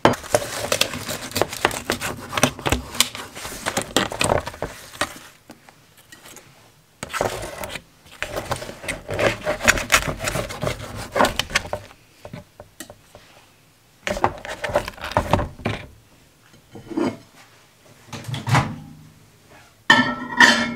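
Kitchen handling noises: dishes, pans and utensils clinking, knocking and scraping, as pizza slices are taken out and readied for reheating. The noises come in several bursts with short pauses between.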